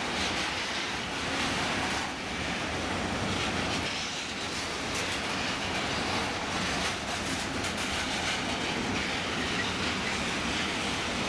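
Container freight train rolling past at steady speed, its wagon wheels clattering over the rail joints.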